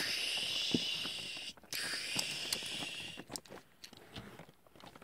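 Two long hissing whooshes, about a second and a half each, followed by light clicks of small plastic parts as a palm-sized Transformers Botshot jet toy is folded from robot into jet mode.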